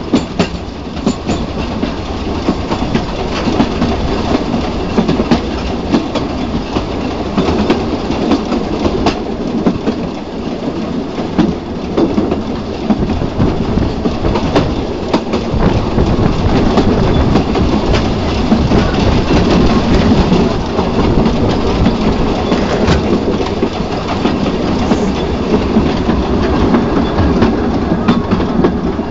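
Saxon IV K narrow-gauge steam locomotive 99 516 running along the line, heard from on board: a steady rumble with its wheels clicking over the rail joints.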